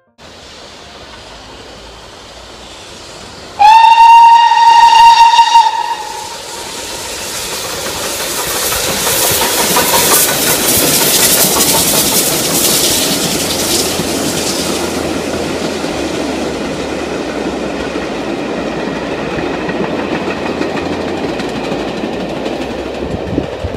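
Steam hissing from GWR Castle-class locomotive 5029 Nunney Castle, then one loud whistle of about two and a half seconds, about three and a half seconds in. A loud hiss of steam swells as the engine pulls away, followed by the steady rumble and clickety-clack of the coaches rolling past.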